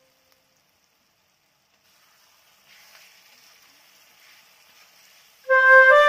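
Faint sizzling of onions, tomatoes and ginger frying in oil in a wok, starting a few seconds in. Flute-led background music begins loudly near the end.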